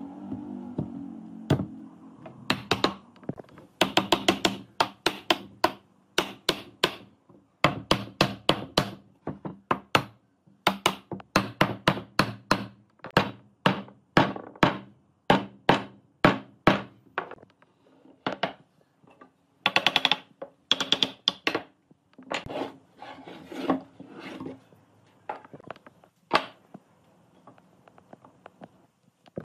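Hammer blows on wood, knocking pine uprights down into the mortises of a curved base piece: quick runs of sharp knocks with short pauses between them, stopping a few seconds before the end.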